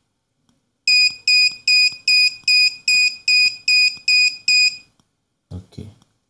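Arduino-driven active buzzer beeping in a quick even series, about ten short high-pitched beeps at roughly two and a half a second, which stops about five seconds in.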